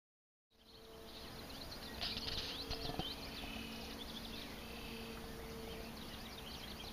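Outdoor marsh ambience fading in: many birds chirping and calling in quick, overlapping short notes, over a steady low hum.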